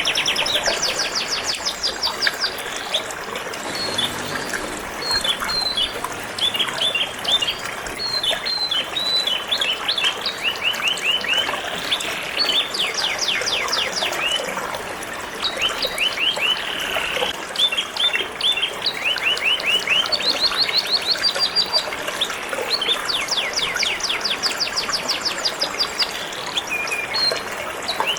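Canary singing long runs of rapid trills and quickly repeated high notes, over a steady trickle of flowing water.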